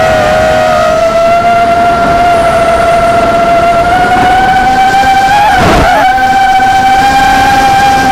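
Blade Vortex 250 Pro racing quadcopter's four brushless motors and propellers whining in flight, heard close up through the onboard camera: a steady tone that creeps slowly higher and wavers briefly about six seconds in.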